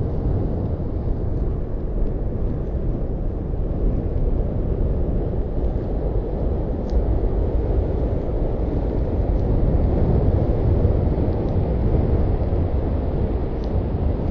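Strong wind buffeting the microphone: a steady low rumble, with a few faint ticks.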